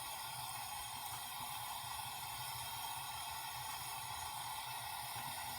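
Hot oil sizzling steadily as potato cutlets shallow-fry in a pan: an even hiss with no pops.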